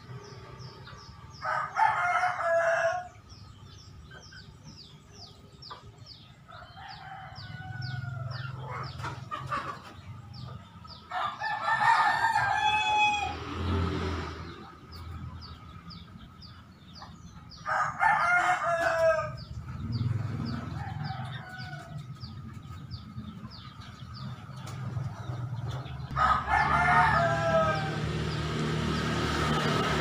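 A rooster crowing four times, each crow a second and a half to three seconds long. Under it runs a steady stream of quick, high chirps from a flock of Eurasian tree sparrows.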